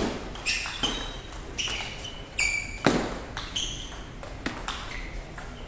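Table tennis rally: the plastic ball clicking sharply off bats and the table, with several short high squeaks of rubber-soled shoes on the sports floor as the players move.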